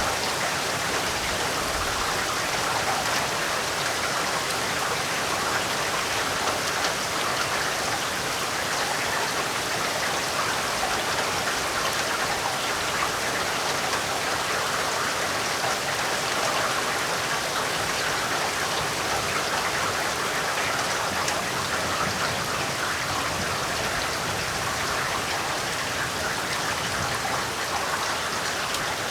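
Heavy rain falling steadily, an even hiss of water with no breaks or swells.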